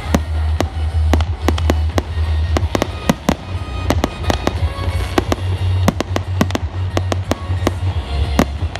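Fireworks banging in a rapid, irregular string, several bangs a second, over music with a deep bass.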